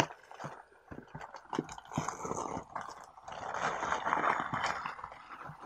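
Cardboard tea boxes handled by hand: a sharp tap at the start, then several light knocks and scrapes, and about two seconds of dense rustling and rubbing near the end.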